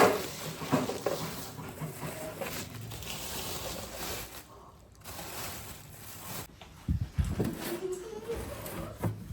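Groceries being handled and unpacked: rustling packaging with a few sharp knocks and thumps of items being set down. A short voice-like sound comes near the end.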